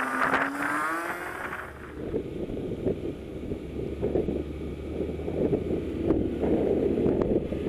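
Wind buffeting the action camera's microphone on a moving motorcycle, over a steady low engine and road rumble. Background music fades out about two seconds in.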